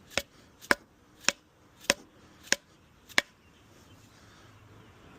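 A socket being struck as a seal driver, tapping a new fork oil seal into a 1975 Yamaha DT175 fork leg: six sharp taps about every 0.6 s, stopping a little after three seconds in.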